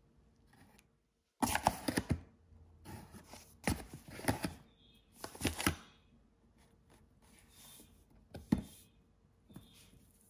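A spatula knocking and scraping against a large stainless steel mixing bowl of batter as flour is added and stirred in, in several short bursts of taps and clicks. The loudest burst is about one and a half seconds in.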